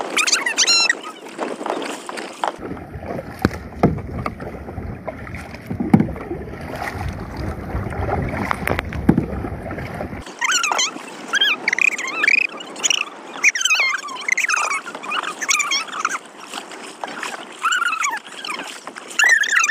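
Kayak paddling on open water: paddle strokes splash and knock against the plastic kayak. For several seconds in the middle, wind rumbles on the microphone, starting and stopping abruptly. High warbling sounds come through in the second half.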